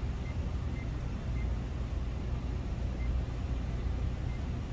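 Schlage keypad deadbolt beeping at each key press as a code is entered: short, high single beeps at irregular spacing, about five of them, over a steady low rumble.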